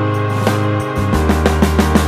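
Background music with held bass notes and a steady, quick beat.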